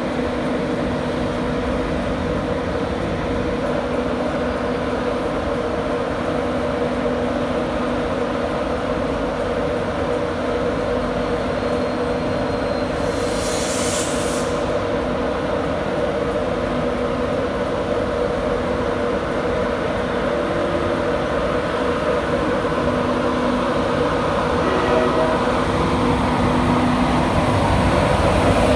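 Class 91 electric locomotives standing at the platform with their equipment running, a steady hum carrying a low droning tone. A short hiss comes about halfway through, and the hum grows a little louder near the end.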